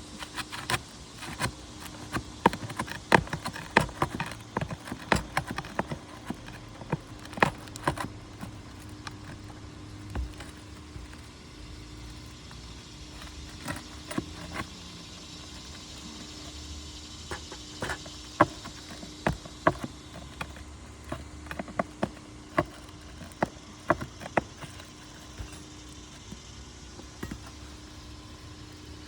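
Irregular sharp clicks and knocks, one to several a second, over a steady low hum. They fall in two bursts of activity with a lull between them.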